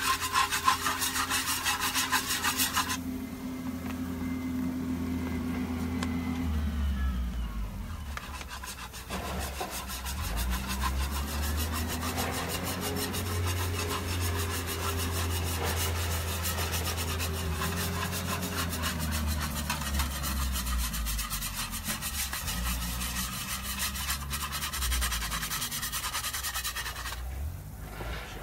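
A utensil scraping and stirring in a cooking pan, working up the browned crispies stuck to the bottom, in quick repeated strokes that are loudest for the first few seconds and then carry on more softly. A low steady rumble runs underneath.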